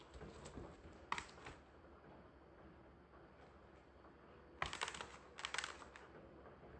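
Pet rabbit digging and scrabbling at hay in a plastic tray: short bursts of rapid, scratchy crackling rustle, the loudest pair of bursts about two-thirds of the way through. Digging the owner takes as a sign of nest-building.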